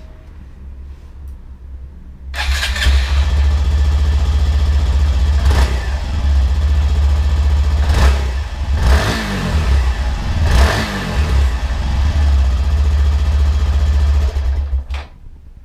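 Honda MSX125 Grom's 125 cc single-cylinder four-stroke engine running through an aftermarket exhaust. It comes in suddenly about two seconds in, runs steadily and is blipped up in a few quick revs, then cuts off near the end.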